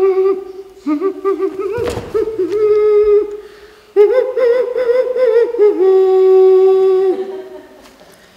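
A high solo voice singing wordless, unaccompanied notes, held and wavering with vibrato, breaking off briefly a little after three seconds and fading out near the end. A single thud about two seconds in.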